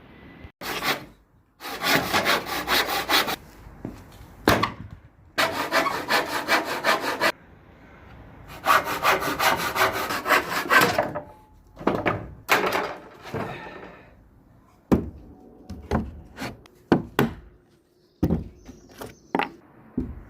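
Hand saw cross-cutting pallet wood in three long bursts of quick, even strokes, then a shorter burst, followed by a series of sharp wooden knocks in the last few seconds.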